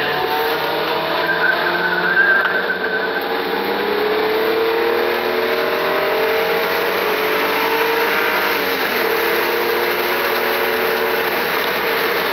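Hyundai Sonata's V6 engine heard from inside the cabin, revving up hard under acceleration with its pitch climbing. About eight seconds in the pitch dips briefly at an upshift, then climbs again.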